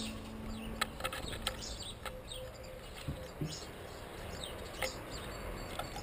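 Small garden birds at a feeder calling in short, scattered chirps, with a few sharp taps.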